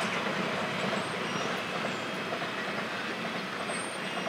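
London Underground train running along the embankment track: steady wheel-and-rail noise that slowly fades.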